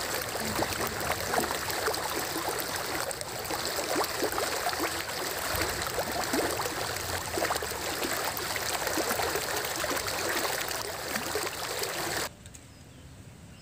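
Fast-flowing river water rushing steadily, cutting off suddenly about twelve seconds in.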